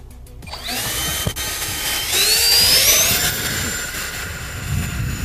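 E-flite Habu SS's 70 mm electric ducted fan, running on a 6S LiPo, spooling up for take-off. A rushing hiss builds, then about two seconds in a whine rises sharply in pitch to full throttle and holds at a steady high whine.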